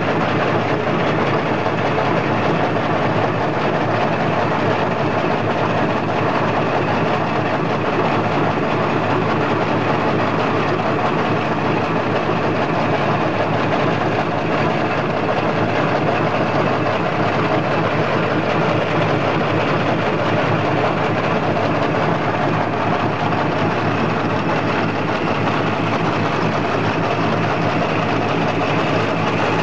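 Single-lane two-colour napkin-making machine running at production speed: a steady, dense mechanical rattle from its rollers and drive as the paper web feeds through the flexographic printing section.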